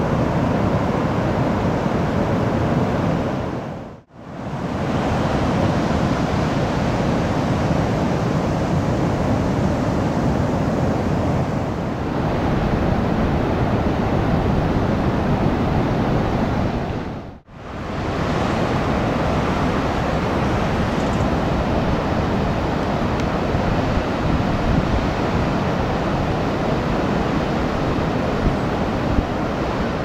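Ocean surf: a steady rush of large waves breaking on a beach, briefly fading out twice.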